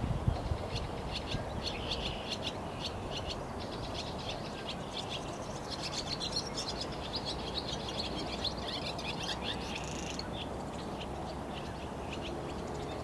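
Several songbirds singing and chirping, with many short, rapid notes, busiest through the middle, over a steady low background rumble.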